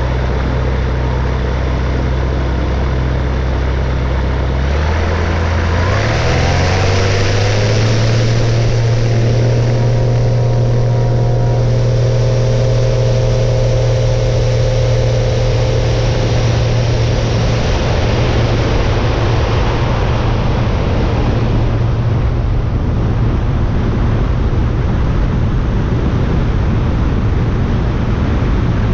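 FK9 microlight's engine and propeller opening up from a low idle to full takeoff power about five seconds in, the pitch rising and then holding steady through the takeoff roll and climb-out. A steady rush of air runs under it.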